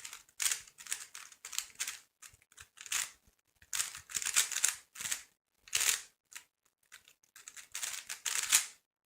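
3x3 speed cube being turned rapidly by hand: bursts of fast plastic clicking and clacking, broken by brief pauses.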